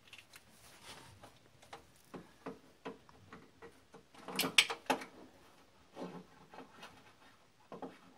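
Ratchet wrench working an ignition coil mounting bolt: irregular small metallic clicks and knocks, with a louder cluster about four and a half seconds in.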